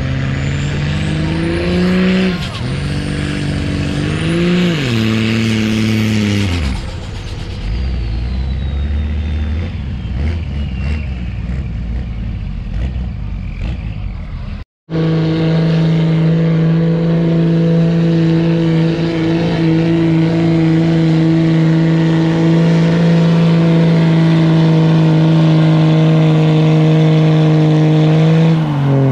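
Diesel pickup trucks at full revs dragging a pulling sled. A farther truck's engine pitch rises and falls, then drops away after about seven seconds. After a sudden gap, a second-generation Dodge Ram's engine holds a loud, steady high note close by, falling off right at the end.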